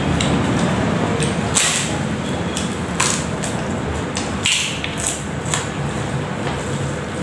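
A person slurping instant noodles and chewing with the mouth open, with several short, sharp slurps.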